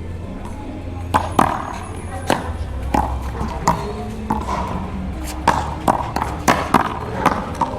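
One-wall paddleball rally: paddles strike a Big Blue rubber ball, which smacks off the wall, giving about ten sharp hits at irregular intervals. Some of the hits ring briefly.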